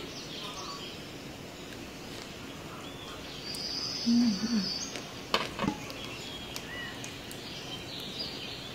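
Faint bird chirps and calls in the background, with a short closed-mouth 'mm-mm' hum while chewing about four seconds in and two sharp clicks of a fork against a plate just after.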